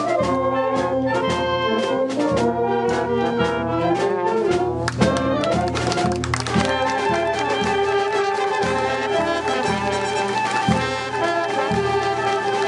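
A wind band playing live, led by trumpets and trombones, as a steady unbroken tune.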